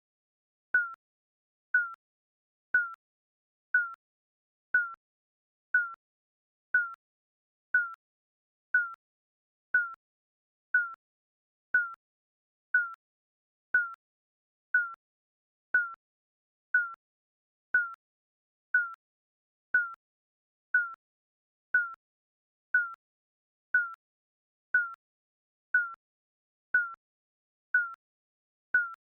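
Digital countdown timer beeping once a second: short high beeps, each dipping slightly in pitch and fading fast, with silence in between.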